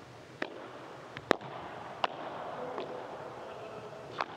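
Padel rally: the ball struck back and forth with paddles, a series of sharp pops roughly every second, the loudest a little over a second in, over a steady low background.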